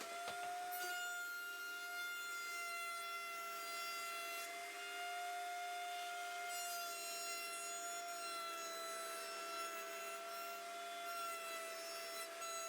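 Hand router running at speed with a steady high whine as it cuts wood. Its pitch wavers slightly now and then under load.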